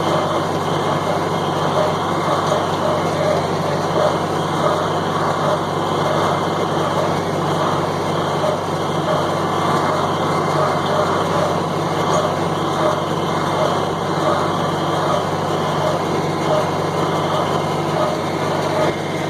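John Deere 4020 tractor running steadily under load, pulling a John Deere 327 square baler at work, with a regular beat a little more than once a second.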